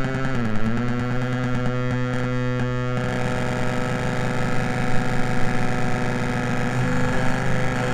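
Droning buzz from a homemade two-oscillator touchplate synth played through its own small speakers: stacked steady tones that dip briefly in pitch about half a second in, then thicken into a denser, harsher buzz from about three seconds in.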